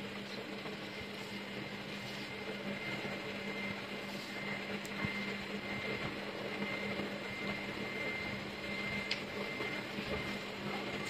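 Air conditioner running with a steady hum and a faint high whine, and a couple of faint ticks along the way.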